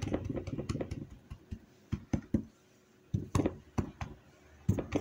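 Hands pressing and handling a filled gözleme dough sheet on a countertop, making soft taps: a quick run of them at first, then single taps every half second or so.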